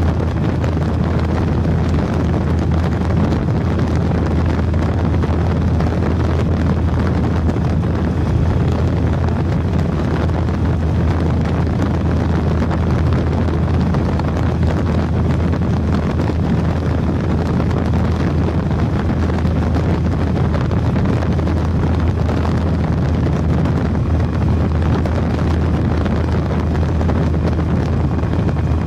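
Steady wind rush over a handlebar-mounted microphone at motorway speed, over the constant low drone of a Triumph Tiger 1050's three-cylinder engine cruising at steady revs.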